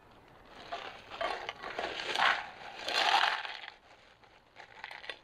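Plastic food bag crinkling and rustling as cooked pasta is tipped out of it into a bowl, in uneven bursts over about three seconds, followed by a few light clicks near the end.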